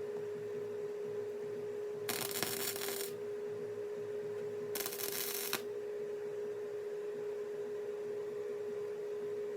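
Two short bursts of welding arc crackle, each just under a second, tacking 18-gauge sheet-metal patch pieces. A steady hum runs underneath.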